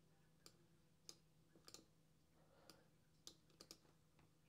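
Faint computer mouse clicks, about eight scattered short clicks with a few in quick pairs, over a faint steady low hum.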